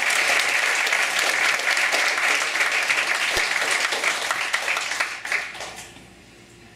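Audience applauding: dense, steady clapping that dies away about five and a half seconds in.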